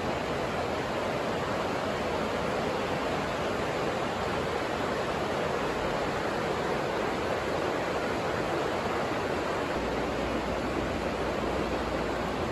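Steady rain on the plastic cover of a hoop house, an even rushing hiss. A low rumble joins it near the end.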